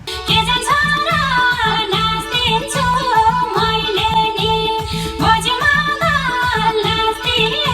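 Song music cuts in suddenly, with a steady, evenly repeating drum beat under a melody line that slides up and down.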